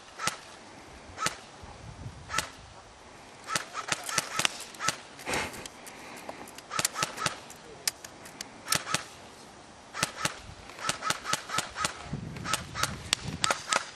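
Airsoft guns firing: sharp cracking shots, a few single shots at first, then short rapid strings of several shots each.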